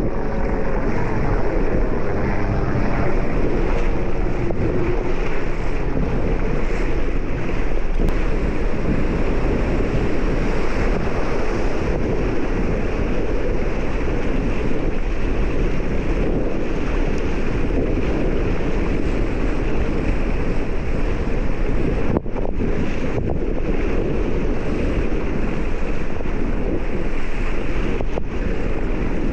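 Steady wind noise buffeting an action camera's microphone while windsurfing, mixed with the rush of water and surf under the board, dipping briefly about three quarters of the way through.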